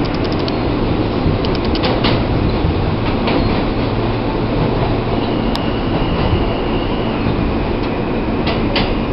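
New York City subway E train running between stations, heard from inside the car: a steady loud rumble of wheels on rail, broken several times by quick runs of clicks as the wheels cross rail joints. A thin high steady tone sounds for a few seconds in the middle.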